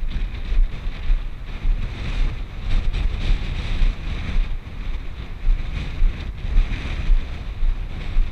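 Wind buffeting the microphone in uneven gusts, with footsteps crunching on a gravel path under it.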